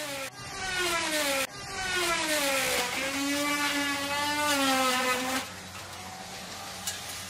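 A motor whining and revving, its pitch sliding down and up in three passes that start abruptly one after another; the longest pass dips, levels off, then drops away to a low steady hum about five seconds in.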